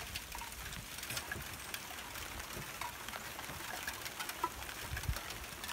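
Faint outdoor background noise with scattered light ticks and a soft low thump about five seconds in.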